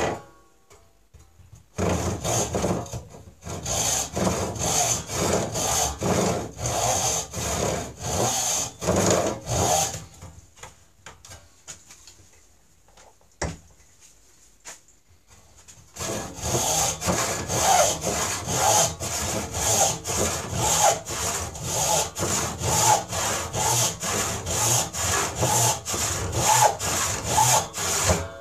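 A 5 ppi hand rip saw cuts a board lengthwise along the grain in steady back-and-forth strokes, about two a second. The sawing stops for several seconds partway through, then starts again.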